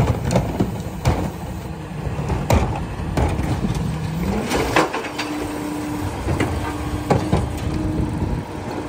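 A rear-loader garbage truck's diesel engine runs while its hydraulic cart tipper lifts and empties a plastic recycling cart. About four seconds in, a whine rises in pitch as the engine and hydraulic pump speed up, then holds steady. Several knocks and bangs come from the cart against the tipper.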